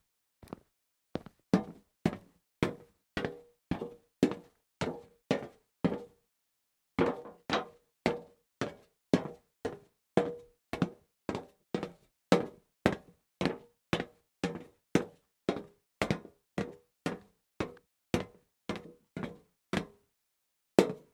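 Footsteps of hard shoes walking on a hard floor, about two steps a second, each a sharp knock with a short hollow ring. The steps grow louder over the first second or two and pause briefly about six seconds in.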